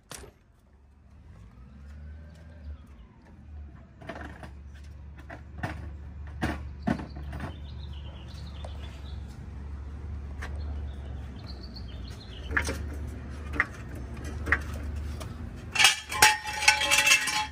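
Scattered metallic clicks and knocks of tools and car parts over a steady low hum, ending in a short run of rapid metal clinking and rattling as a steel floor jack is worked under the car.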